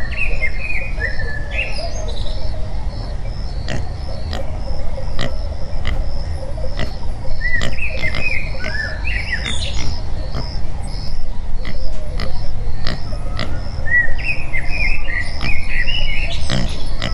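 Outdoor animal sounds: bouts of short, high chirping or squeaking calls come three times, near the start, in the middle and near the end. Under them run a steady low rumble and faint, regularly spaced ticks.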